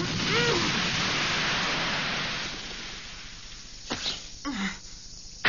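Cartoon sound effect of shattering stone after a heavy blow to a paved courtyard: a rushing wash of noise that fades away over about three seconds. Two short sounds follow near the end, the second falling in pitch.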